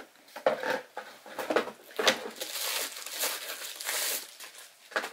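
Clear plastic packaging crinkling and rustling in irregular bursts as a boxed photo printer is lifted out and unwrapped, with the longest stretch of crinkling in the middle.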